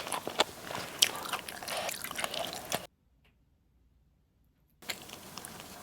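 Close-miked wet chewing and mouth sounds from eating soupy ramen noodles, with small clicks. The sound drops out completely for about two seconds in the middle and then returns faintly.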